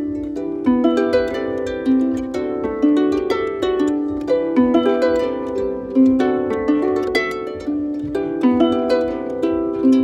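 Small harp played by hand: a steady run of plucked notes in a repeating, flowing figure in the middle register, each note left ringing under the next.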